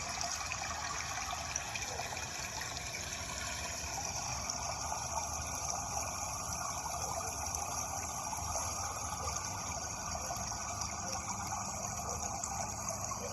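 Running water flowing steadily, an even continuous rush without breaks.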